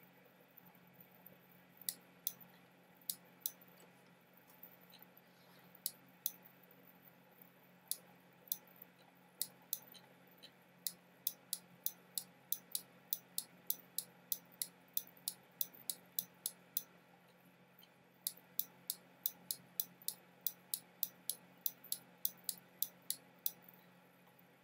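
Small, sharp clicks, a few scattered at first and then in regular runs of about two to three a second, over a faint steady low hum.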